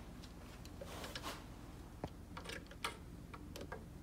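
Light, irregular clicks and taps of a socket wrench and extension being worked onto a bolt, over a faint steady low hum.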